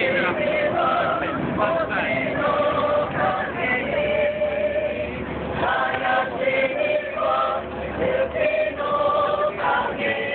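A group of voices singing together in the open air, a slow melody of held notes that step from pitch to pitch.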